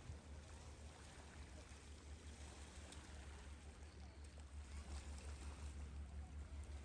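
Faint background ambience: a steady low hum under an even, soft hiss, with a few faint ticks.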